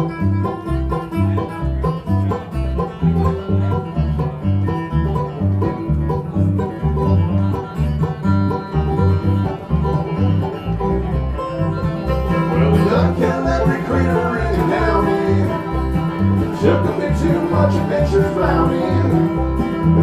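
Live bluegrass band playing an instrumental break: banjo picking over acoustic guitar and a steady upright bass beat, the playing growing louder and fuller about twelve seconds in.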